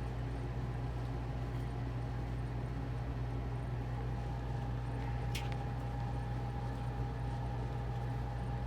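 A steady low mechanical hum with a thin, constant whine above it, and a single sharp click about five seconds in.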